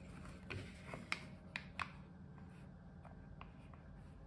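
Faint, scattered clicks and taps of plastic sunglasses frames being handled, most of them in the first two seconds, over a low steady hum.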